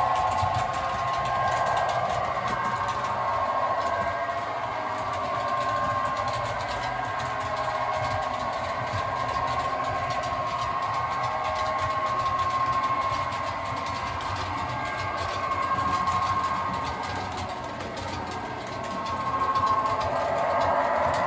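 Model trains running on a layout: the steady whine of their small electric motors, with the wheels running on the track. Near the end the whine shifts in pitch and grows louder as a train passes close.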